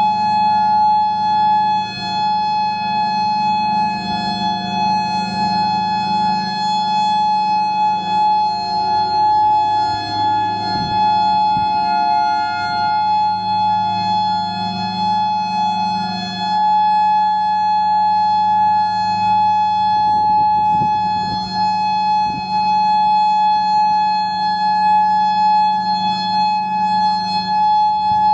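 Outdoor storm warning sirens sounding a steady tone, led by a Federal Signal Modulator 5020B. It holds one high pitch without rising or falling, and a second siren holds a slightly lower pitch beneath it, the two clashing.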